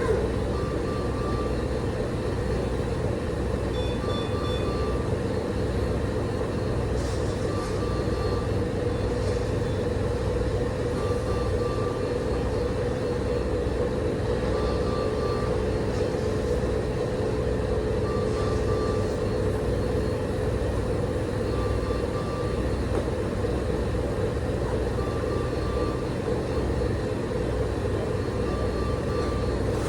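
Steady hum and rumble of hospital machinery, with a short electronic beep repeating about every three and a half seconds.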